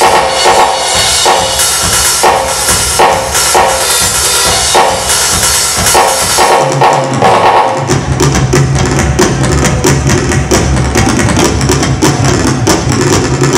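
Roland electronic drum kit played to music through PA speakers, with a cymbal-heavy beat at first. About halfway through, a deep steady bass note comes in and the beat gets denser.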